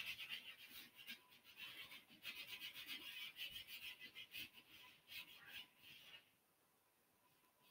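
Sandpaper rubbed by hand over a wooden banjitar neck: faint, quick back-and-forth scratching strokes that stop about six seconds in. The sanding smooths wood filler and dowel plugs ahead of staining.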